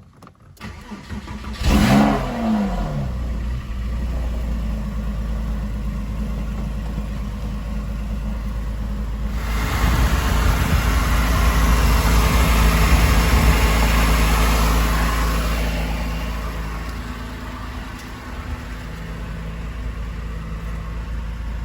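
Porsche 997's flat-six engine cranked by the starter and firing about two seconds in with a quick rise and fall in revs, then running at idle. It gets louder and brighter for several seconds in the middle, then settles back to a steady idle.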